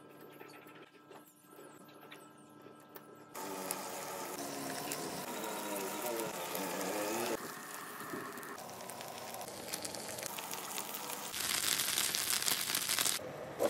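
Chicken breasts and barbecue sauce sizzling and bubbling in a nonstick frying pan. The sound comes in short segments that cut in abruptly: faint at first, louder from about three seconds in, with the strongest hiss near the end.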